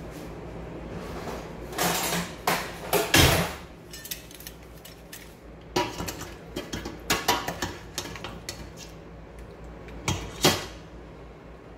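Short clusters of clinks and knocks from a glass baking dish and ceramic bowls on a kitchen counter, as sliced vegetables are laid into the dish. The clinks come in three bursts, with the loudest near the middle.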